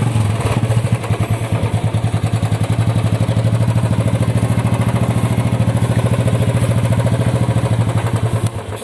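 Royal Enfield Bullet single-cylinder four-stroke motorcycle engine idling with a steady, even thump. It cuts off near the end.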